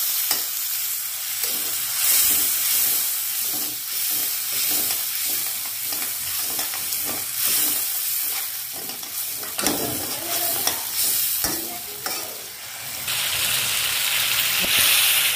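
A spatula stirring and scraping through sizzling, bubbling masala in a metal wok, in repeated strokes. From about 13 seconds in, the sizzle grows louder. The spice paste for a fish curry is being cooked down (kosha) until done.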